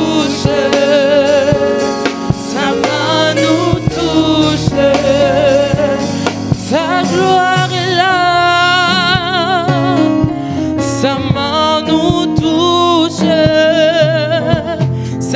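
Women singing a gospel worship song with a wavering vibrato, accompanied by a Yamaha MOXF6 electric keyboard.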